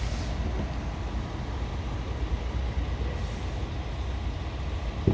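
Scania R tractor unit's diesel engine idling, a steady low rumble, with one short knock near the end.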